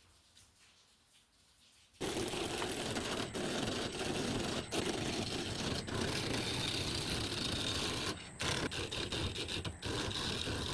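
Wood lathe turning a wooden centrepiece, with a turning tool cutting into the spinning wood: a steady, loud scraping and shaving noise that starts suddenly about two seconds in, with a couple of brief breaks in the cut.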